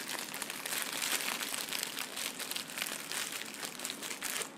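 Packaging crinkling and rustling as it is handled by hand, a dense run of small crackles.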